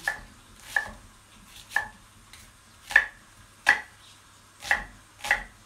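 Chef's knife chopping an onion on a wooden chopping board: about eight sharp knocks of the blade hitting the board at an irregular, unhurried pace.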